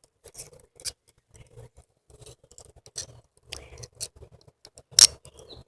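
Small scattered clicks and rattles of toy handcuffs with a push-button release being worked off the feet, with one sharp click about five seconds in.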